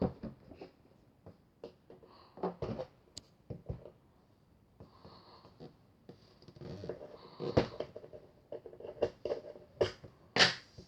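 Irregular clicks and knocks, like handling noise, with a denser run of them in the middle and two sharper knocks, the loudest near the end.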